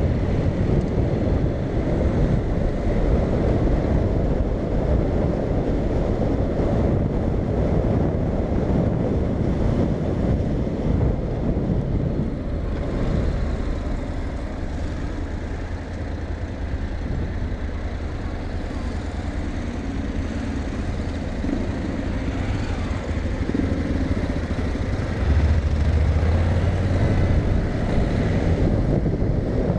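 Honda Integra's parallel-twin engine running under way, with wind rushing over the camera microphone. The sound eases off midway as the bike slows in traffic and grows stronger again as it picks up speed.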